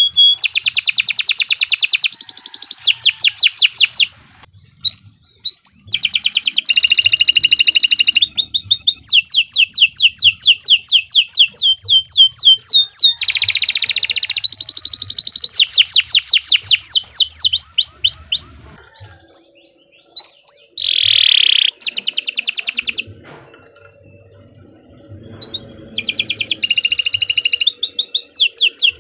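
Domestic canary singing long rolling trills of rapid, evenly repeated notes, in phrases broken by short pauses about four seconds in and again past the middle.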